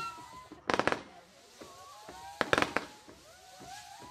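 J-Fireworks Frozen Bees low-noise 40-shot 17 mm fireworks battery firing: a quick cluster of pops about a second in and another near the middle, with many whistling effects gliding up and down throughout.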